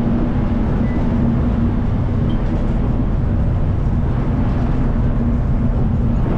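Car ferry's engines running under way, a steady low drone with a constant hum, under an even rushing noise.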